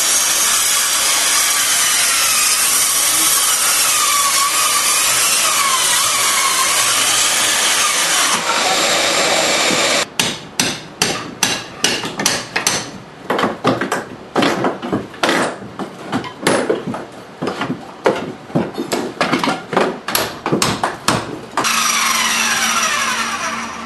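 Floor demolition work. A steady machine noise with a wavering pitch runs for about the first ten seconds. Then comes a long run of irregular hammer blows and knocks on the wooden floor, about two a second. A power tool starts up again near the end.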